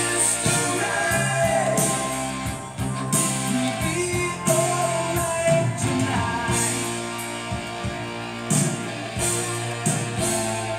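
Music playing from a vinyl record on a Technics SL-DD2 direct-drive turntable: a song with singing over instrumental backing.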